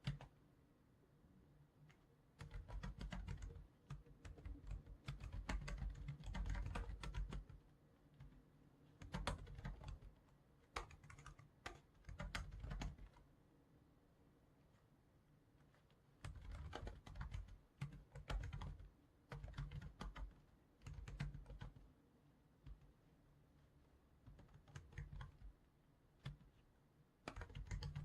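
Typing on a computer keyboard, in bursts of one to three seconds of quick keystrokes separated by short pauses.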